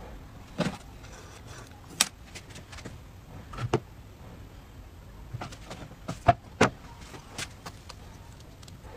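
Scattered sharp clicks and knocks of an electric crepe maker and kitchen utensils being handled on a tabletop, about half a dozen in all, the loudest two close together a little past six seconds in.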